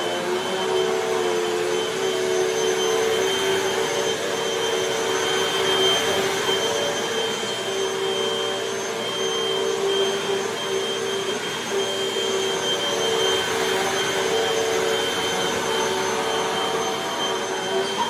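Hoover WindTunnel Rewind upright vacuum cleaner running steadily as it is pushed over carpet and rugs: a constant motor tone over the rush of air.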